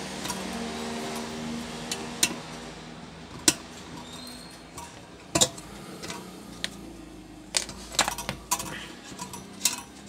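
Sharp, irregular clicks and light metallic taps of a screwdriver and wiring being handled against the rice cooker's opened metal base, with a few clicks close together near the end.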